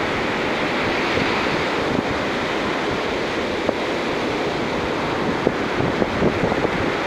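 Ocean surf breaking and washing up onto a sandy beach, a steady rush, with wind rumbling on the microphone. A few brief thumps come in the second half.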